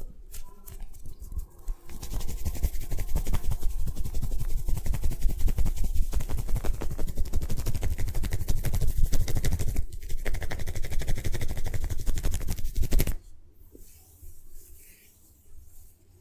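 Vigorous massage strokes on the body: a fast, dense run of crackling strokes. It starts about two seconds in and stops abruptly about thirteen seconds in, leaving only faint scattered touches.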